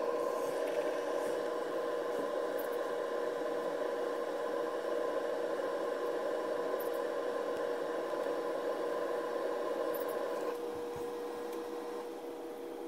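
Steady electric hum with a steady whine from the drawing robot arm's servo motors as it moves the marker around a circle. It gets a little quieter about ten and a half seconds in.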